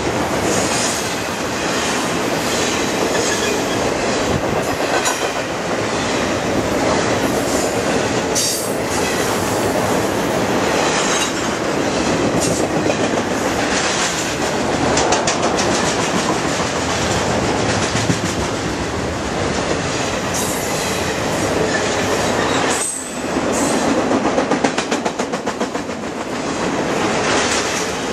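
Intermodal freight cars rolling past close by: a steady, loud rumble and clatter of steel wheels on rail, with clickety-clack over the rail joints. Near the end the noise briefly drops, then comes back as a run of regular clacks.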